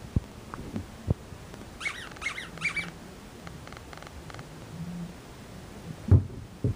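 An Australian shepherd puppy giving three short high-pitched whines about two seconds in. A few soft thumps come earlier, and two louder thumps near the end are the loudest sounds.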